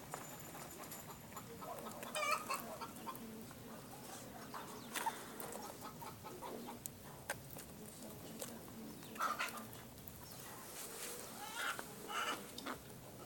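Kalimero broiler chickens clucking in a few short bursts spread through, the loudest about two seconds in, with scattered light clicks between the calls.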